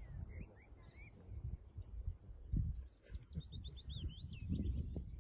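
A small songbird singing: a few short chirps, then about three seconds in a rapid run of about a dozen high, quickly falling notes. A low rumble lies underneath.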